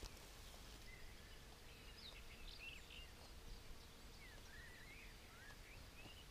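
Faint birdsong: scattered short chirps and quick rising and falling whistles over a quiet outdoor background.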